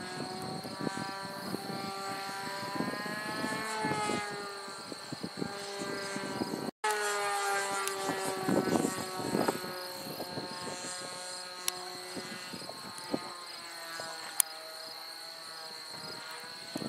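Twist 60 3D radio-control model airplane's engine and propeller buzzing overhead, the pitch rising and falling as the throttle changes during aerobatics. The sound drops out for an instant a little before halfway through.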